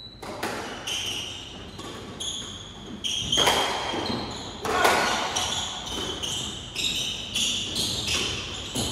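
Squash rally: the ball cracking off rackets and the court walls about once a second, with rubber-soled shoes squeaking in short bursts on the wooden floor as the players move.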